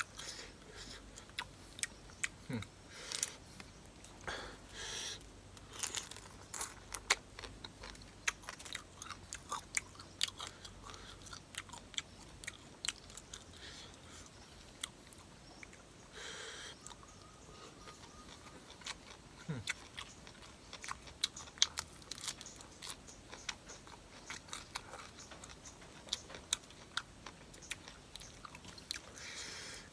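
A person chewing and biting food close to the microphone: a steady run of short, irregular crunching clicks.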